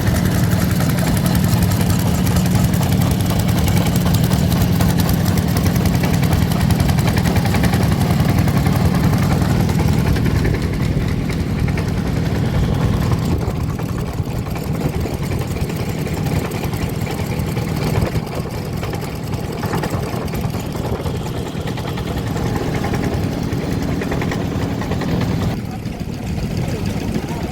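An engine running steadily with a fast, even pulsing and a strong low hum. It gets quieter about ten seconds in and drops again near the end.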